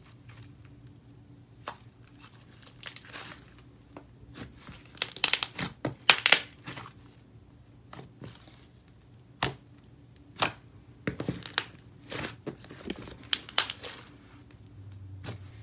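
Thick clay slime being squeezed, stretched and pressed by hand, giving irregular sizzly crackles and small pops. They come in a thick cluster about five to six and a half seconds in, then as scattered single pops.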